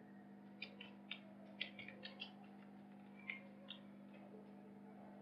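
Near silence with a low steady hum, broken by a scattered handful of faint, irregular clicks in the first four seconds.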